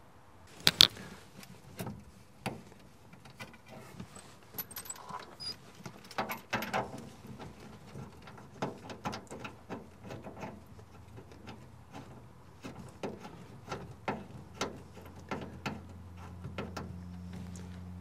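Hand tools clicking and knocking against metal as a gas line fitting is connected to the water heater: irregular sharp clicks and clinks, some ringing briefly. A low steady hum comes in near the end.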